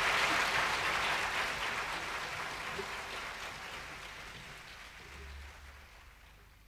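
Audience applauding, the clapping fading steadily away toward near silence by the end.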